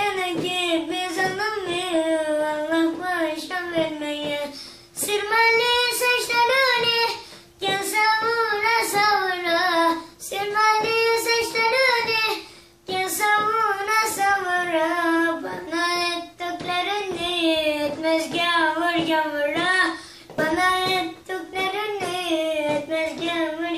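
A young boy singing unaccompanied in Turkish, a song of reproach with a wavering, heavily ornamented melody, sung in phrases of a few seconds broken by short pauses for breath.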